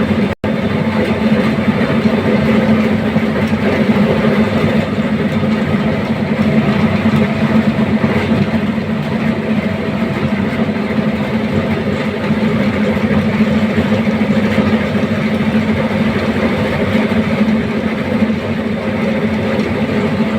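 Air handling unit (AHU) motor running with a loud, steady hum and mechanical drone: the unwanted motor noise being asked about. The sound cuts out for an instant about half a second in.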